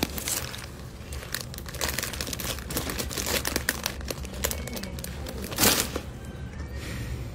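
Clear plastic bag crinkling and crackling as it is handled around a piece of bread being eaten, with many small crackles and one louder rustle about five and a half seconds in.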